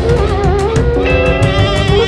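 Background music: a wavering melody over held notes and a steady beat.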